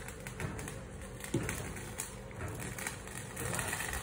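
Pot of chicken soup bubbling at the boil on a gas stove: a steady low rumble of the boil and burner with small pops and clicks, and one brief louder knock about a third of the way in.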